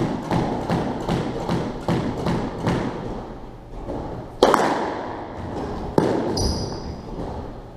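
Squash ball being played in an echoing squash court: a run of light, evenly spaced ball bounces, about two or three a second, for the first three seconds, then two hard ball strikes a little past halfway and about six seconds in. Right after the second strike comes a short squeak, like a shoe on the wooden floor.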